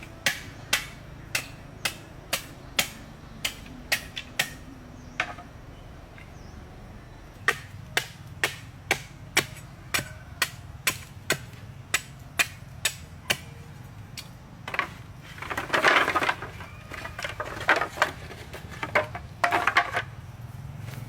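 Repeated sharp knocks from a hand tool striking, evenly paced at about two a second, pausing for a couple of seconds midway. Near the end come louder, rougher bouts of scraping and knocking, over a steady low hum.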